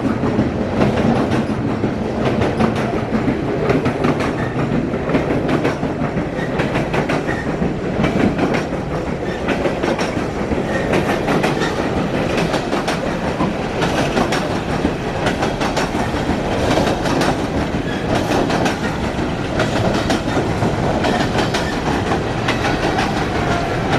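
Long freight train of coal cars rolling past, its wheels clacking continuously over the rail joints under a steady rumble.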